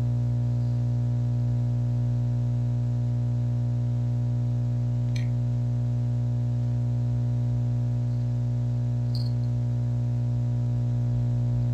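Steady low electrical hum with a buzzy stack of overtones, unchanging throughout, with one faint click about five seconds in.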